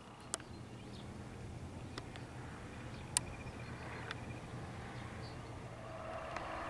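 SU42 diesel locomotive heard from afar as it approaches, a low engine hum that grows steadily louder, with more of its sound filling in near the end. High pulsed chirping and a few sharp clicks are heard over it.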